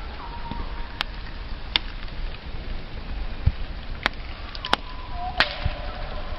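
Wood campfire burning and crackling, with about five sharp pops scattered through it. A faint, thin whistling tone comes and goes between the pops.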